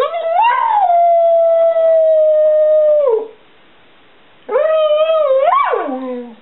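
A Border Collie mix howling twice, his "talking" howl. The first howl rises, holds a steady pitch for about three seconds and drops off; after a short pause a shorter, wavering howl slides steeply down in pitch at its end.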